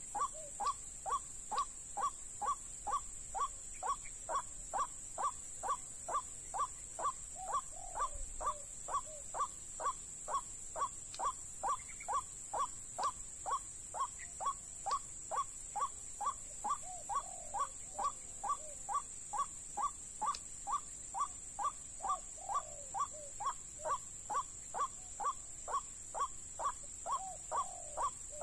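White-breasted waterhen calls: a short, falling, caw-like note repeated evenly about twice a second without a break.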